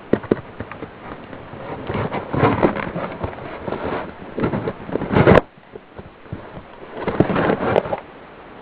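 A blade cutting through the packing tape and cardboard of a shipping box: irregular scraping and crackling, with a louder burst about five seconds in.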